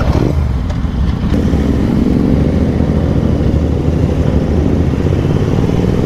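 Royal Enfield 650 parallel-twin motorcycle engine running as the bike pulls away, its pitch rising gradually from about a second in.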